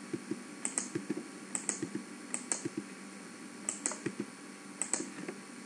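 Computer keyboard keystrokes and mouse clicks: short, light taps at an irregular pace, a few of them in quick pairs.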